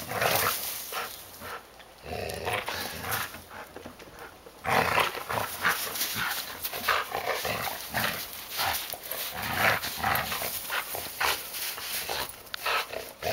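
A Samoyed making dog noises as it tugs and chews a rope leash, with a dense run of crackling, crunching strokes from snow and rope. These grow busier about five seconds in.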